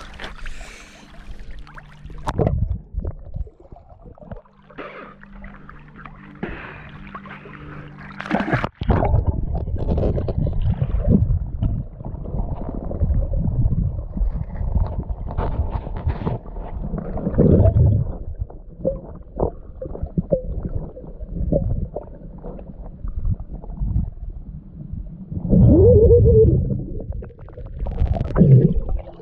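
Sound heard through a camera held underwater in a shallow river: muffled rumbling and gurgling of water and the hand moving in the gravel bed. About nine seconds in, the sound changes suddenly to a low, dense rumble as the microphone goes under, and a muffled pitched sound comes a few seconds before the end.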